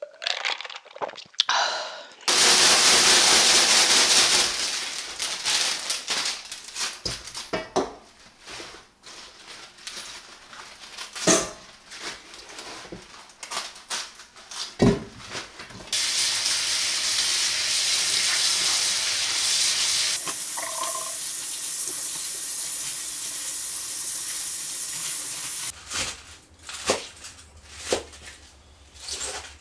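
Kitchen tap running into a stainless-steel sink while a batch of young napa cabbage (eolgari) is rinsed. The stream comes on about two seconds in for a couple of seconds, then runs again for about ten seconds later on, with the splashing and handling of wet leaves and scattered knocks in between.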